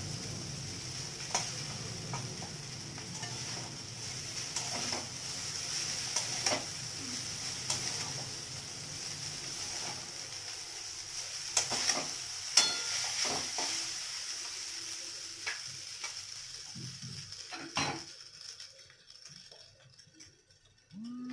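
Noodles sizzling as they are stir-fried in an aluminium wok on a gas stove, with a spatula scraping and knocking against the pan now and then. The sizzle dies away about eighteen seconds in.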